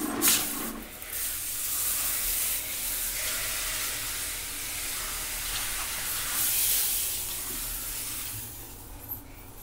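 Compressed air hissing through a homemade plastic-bottle sprayer on an air-hose gun, blasting liquid out as a fine mist. A sharp burst comes as the air opens, then a steady, wavering spray hiss that cuts off suddenly at the end.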